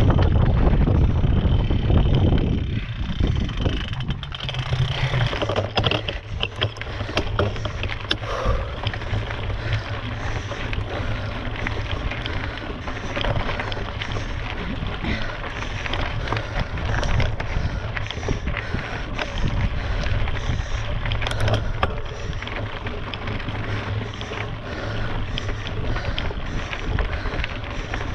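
Wind buffeting an action camera's microphone on a mountain bike ridden up a climb, heaviest in the first few seconds. Under it run the steady noise of the ride and many small clicks and rattles from the bike.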